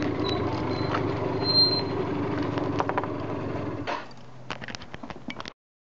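Motor scooter engine running, then dropping to a quieter steady idle about four seconds in, with a few light clicks; the sound cuts off suddenly.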